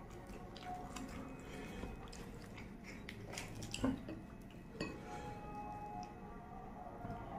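Fingers tearing a fried puri and dipping it into a glass bowl of sauce: soft crackles and wet squishes, with a sharper click about four seconds in.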